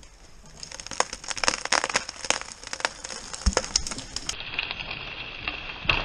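Spruce trunk's hinge wood crackling and snapping in quick, irregular cracks as the cut tree starts to tip over, with a single low thud partway through.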